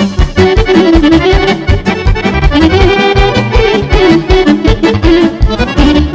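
Live band music: a chromatic button accordion playing a quick melody together with a saxophone, over a steady beat.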